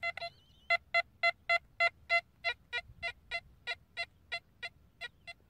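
Nokta Impact metal detector giving a quick run of short, buzzy beeps of one pitch, about three a second. It is the target tone for a 50-cent coin passed in front of the coil at around 40 to 50 cm.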